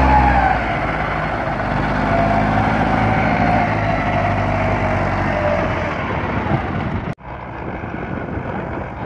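Massey Ferguson 265 tractor's diesel engine working under heavy load, pulling a loaded trolley, with a whine that sags in pitch. About seven seconds in it cuts off suddenly, and a quieter, more distant tractor engine takes over.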